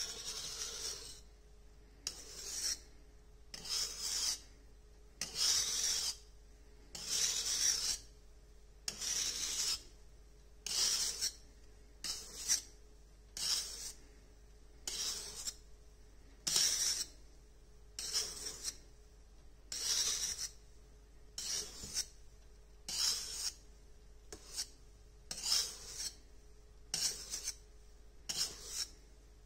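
A hand wire whisk scrapes and swishes against a stainless steel mixing bowl in slow, even strokes, about one stroke every second or so. It is gently folding melted chocolate and butter into whipped eggs and sugar so the batter keeps its air.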